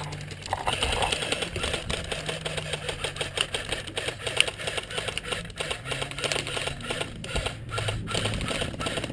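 Airsoft electric rifles firing in long bursts, a rapid mechanical clatter of clicks from the gearboxes cycling.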